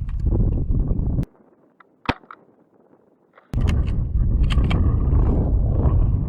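Wind buffeting the microphone, cut off suddenly about a second in; in the brief quiet an airsoft Kar98k rifle fires once with a single sharp snap, with a few small clicks around it, before the wind noise comes back.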